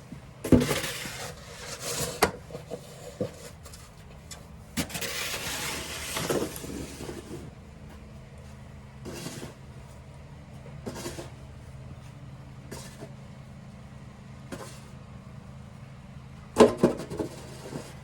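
Snow shovel scraping along pavement in three long pushes, with sharp knocks of the blade, and lighter scrapes about every two seconds in between. A steady low hum runs underneath.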